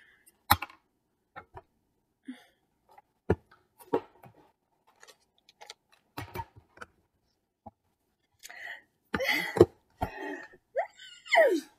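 Scattered knocks and rustles of someone rummaging around a sofa. Near the end come frustrated huffs and groans, one sliding down in pitch.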